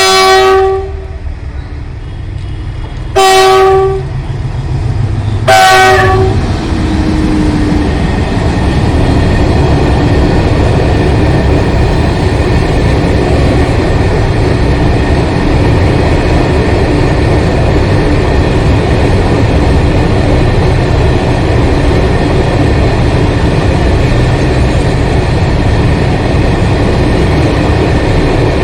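WDG-4G diesel freight locomotive sounding its horn in three short blasts, the last one sliding down in pitch as it ends. The locomotive and a rake of empty BOXN open wagons then pass by, a steady loud rumble and clatter of wheels on rail.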